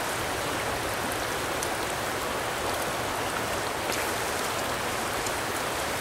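Small rocky trout stream flowing steadily over riffles and pocket water, an even rushing of water, with a faint tick about four seconds in.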